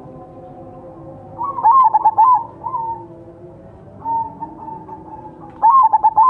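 Crossbred zebra dove (perkutut) cooing. A phrase of quick, stuttering coos comes about a second and a half in, a single held note follows around four seconds, and another stuttering phrase starts near the end.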